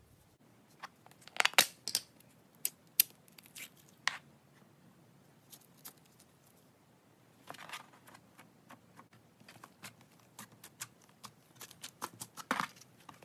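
Clear blue Daiso jelly slime squeezed and worked by hand, giving a string of sticky clicks and pops, with styrofoam pressed into it crunching and crackling. The loudest crackly bursts come about a second and a half in and again near the end.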